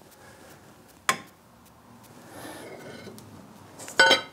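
Handling noise: a single sharp click about a second in, then near the end a bright, ringing clink of loose metal parts knocking together.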